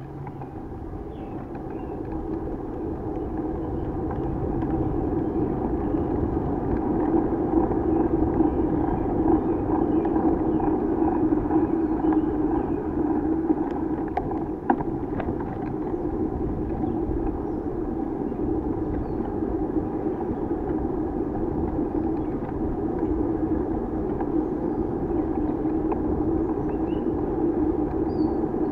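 Bicycle riding noise heard through an action camera's housing wrapped in two layers of fur windscreen: a steady rolling hum with muffled wind rumble, growing louder over the first several seconds, with a single sharp click about halfway through.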